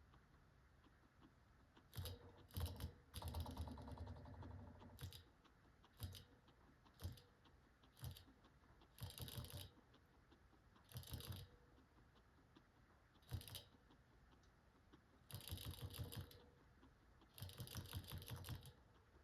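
Guinea pig chewing hard pellets: bouts of rapid crunching clicks, from a half-second to a couple of seconds long, with short pauses between them.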